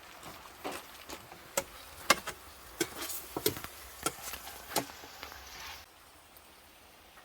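Kitchen utensils knocking and clicking irregularly, about a dozen sharp strikes that stop about six seconds in.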